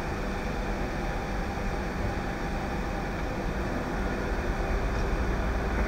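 Steady low rumble of an idling fire engine's diesel engine, with an even background noise.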